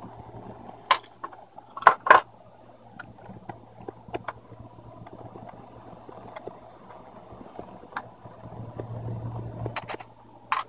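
Scattered small clicks and taps of hands and a screwdriver working on a laptop's plastic screen lid, the loudest pair about two seconds in, over a steady low hum.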